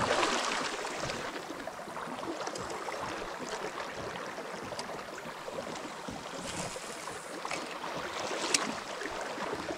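Steady wash of river water around a kayak, with a few faint ticks and one short, sharper click about eight and a half seconds in.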